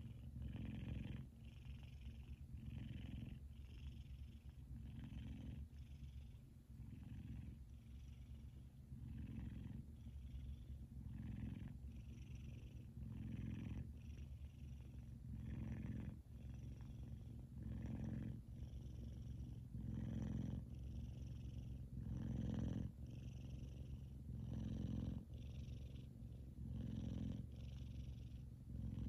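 F2 Savannah cat purring loudly while asleep, the purr swelling and easing in a steady rhythm about once a second as it breathes in and out.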